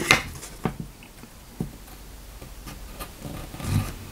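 A thin, hawk-nosed curved carving knife of high-speed steel cutting curved lines into a wooden board: a few short, irregularly spaced snicks and scrapes of the blade in the wood.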